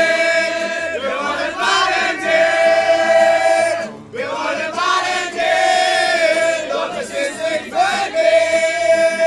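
A crowd of young people singing together in chorus, in long held phrases with a short break about four seconds in.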